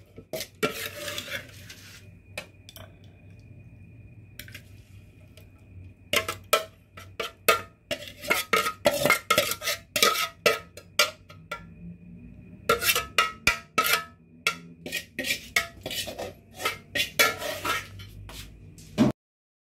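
Metal spoon scraping and clinking against a metal pot as tofu larb is stirred and then scraped out onto a plate, in runs of quick scrapes and knocks. There is a quieter stretch a few seconds in, and the sound cuts off just before the end.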